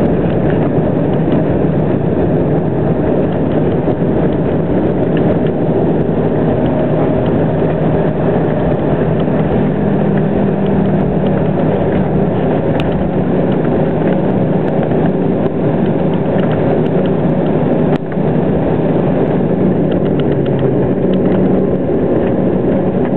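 Cabin noise of an Embraer ERJ-195 rolling along a wet runway after landing: a steady rush from its GE CF34-10E turbofan engines and the airflow, with a low hum underneath.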